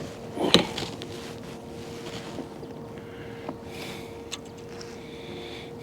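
Fishing kayak on the water: a faint steady hum throughout, a brief loud knock or splash about half a second in, and a few light clicks later.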